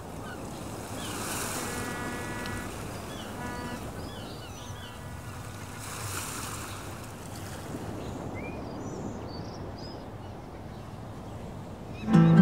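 Seaside ambience of steady surf and wind, with birds chirping throughout and two louder washes of waves. A music track comes in loudly with held low notes just before the end.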